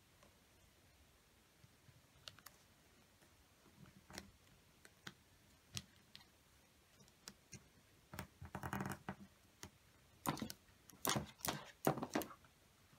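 Paper rustling and crackling as it is folded and creased by fingers: sparse faint crinkles at first, a denser rustle about eight seconds in, then several sharper crackles near the end.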